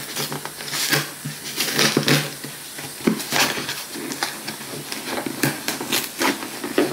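Cardboard shipping box being handled and opened by hand: a run of irregular scraping, rustling and tapping noises.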